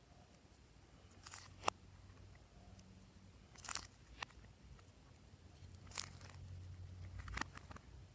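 A handful of short, sharp crunches, about five spaced a second or two apart, over a faint low hum.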